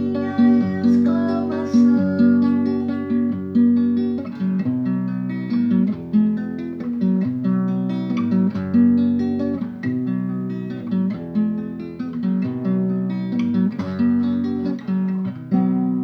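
Acoustic guitar playing a picked chord pattern, each note struck and left to decay, with a last chord struck near the end and left to ring.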